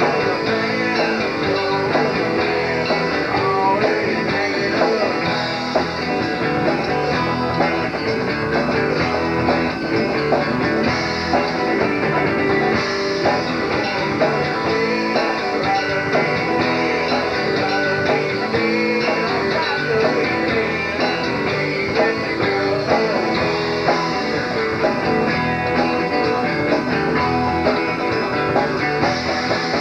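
Southern rock band music: guitars to the fore over bass and drums, playing steadily.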